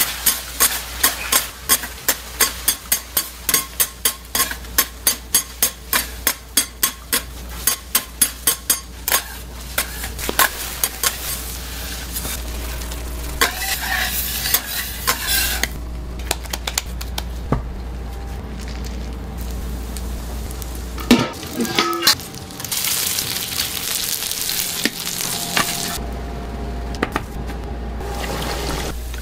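Metal spatula striking and scraping a flat-top griddle, a quick even run of about three strikes a second for the first ten seconds, as egg cooks on the hot plate. After that comes sizzling, then breaded patties frying in oil in a pan, with a couple of knocks about two-thirds of the way through.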